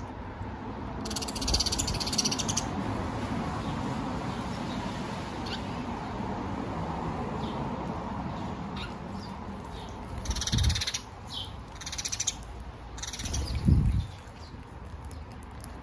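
Small animals giving high-pitched, rapid chattering calls in several bursts over a steady outdoor background. There are two dull low thumps, the louder near the end, as squirrels scramble and leap.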